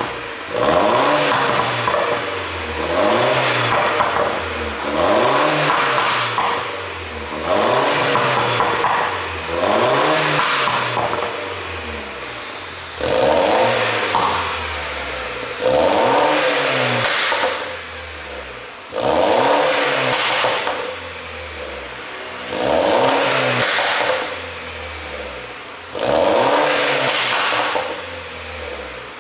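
A 2011 MINI R56 Cooper S's turbocharged 1.6-litre four-cylinder engine is blipped about ten times, every two to three seconds. Each rev climbs quickly and falls back to idle. The ECU is tuned to make exhaust pops on the overrun.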